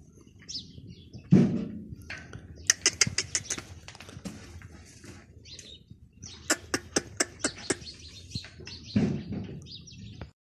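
Small birds chirping in two quick runs of short sharp chirps, with two louder low rumbling thumps, one about a second and a half in and one near the end.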